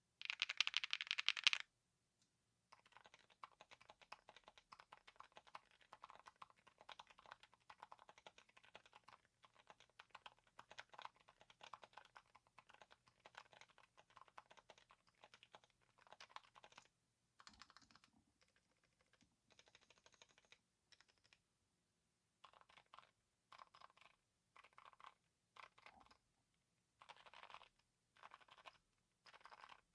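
Typing on a Chilkey ND75 mechanical keyboard with HMX Silent Sakura silent linear switches: quiet, damped keystrokes with a faint clack. A louder run of keys opens, then steady continuous typing for about fourteen seconds, then short runs of keystrokes with pauses between them.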